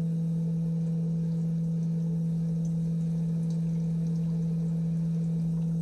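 Vevor electric cream separator's motor running at a steady speed: a constant, steady hum with a few fainter higher tones over it.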